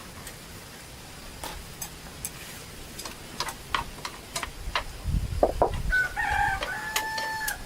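A rooster crows once in the last couple of seconds: a long, held call that dips at the end. Scattered light clicks and knocks are heard throughout.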